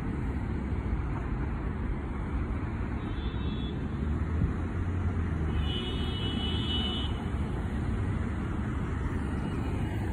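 Steady low rumble of city street traffic. A faint high-pitched whine sounds briefly twice, about three seconds in and again around six seconds in.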